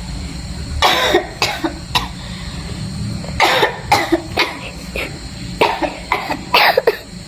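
A person with a bad cough coughing repeatedly, in three bouts of a few coughs each.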